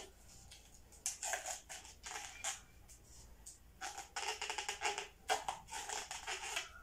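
Latex twisting balloon squeaking and rubbing between the fingers as it is pinched and tied into a knot. The squeaks come in short irregular bursts, a few about one and two seconds in and a busier run over the last three seconds.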